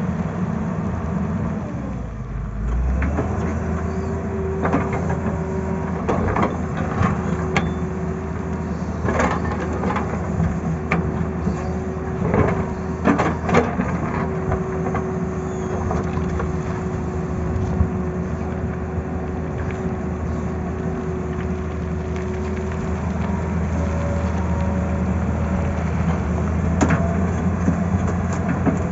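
Tata Hitachi hydraulic crawler excavator's diesel engine running steadily under working load, with a steady whine through much of the middle. Scattered knocks and clatter come as the bucket digs and moves rock and soil, most of them in the middle stretch and a few near the end.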